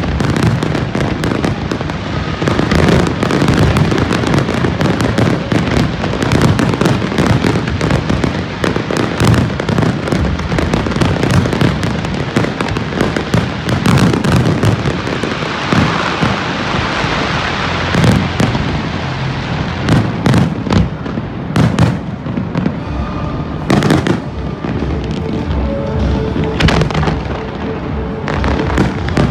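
Fireworks display: shells bursting in a dense, irregular string of loud bangs, with a stretch of crackling hiss about halfway through.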